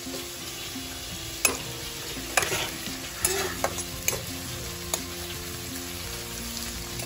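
Sliced onions, bay leaves and chillies sizzling in hot oil in a kadai. A metal spatula stirring the pan scrapes and knocks against it about six times between about a second and a half and five seconds in. The onions are being fried toward red-brown.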